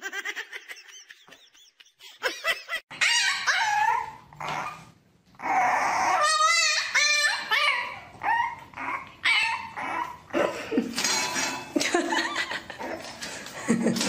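Dogs whining and yipping: a string of high-pitched, wavering calls with short pauses, starting about two seconds in.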